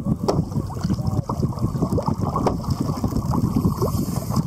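Wind buffeting the microphone over open sea, with water sloshing against the kayak. A few short sharp clicks and brief squeaks cut through, about a second apart at first.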